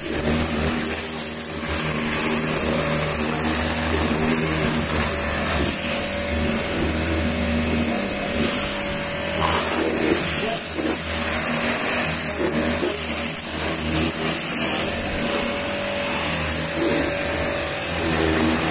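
Pressure washer running steadily: its pump motor hums under the hiss of the water jet spraying against a car's body panels.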